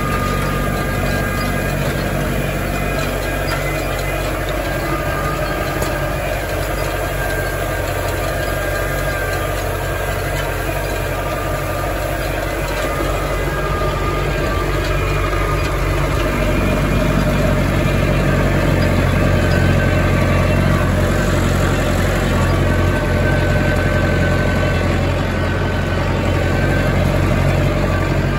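Farm tractor engine running steadily while pulling a small square baler with a bale thrower, a little louder in the second half.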